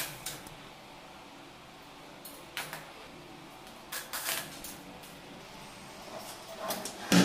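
Scattered light metallic clinks and knocks as a stainless-steel wire kitchen basket and its fittings are handled, with a louder knock a little before the end; no drill motor is running.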